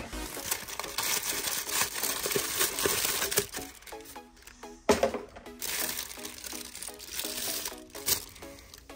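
Toy packaging crinkling and rustling with sharp clicks as an action figure's box and accessories are handled, over light background music.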